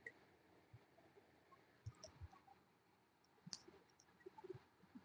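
Near silence with a few faint, scattered clicks and ticks.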